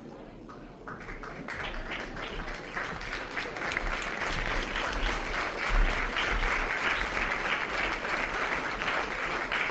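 Audience applauding, starting about a second in and building up.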